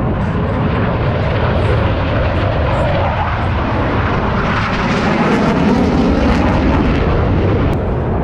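Blue Angels jet aircraft engine noise: a dense rumble that swells to its loudest about five to seven seconds in as the jet passes, then eases off.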